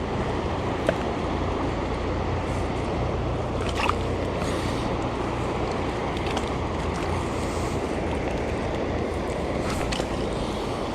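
Steady rush of fast-flowing river water, with wind noise on the microphone.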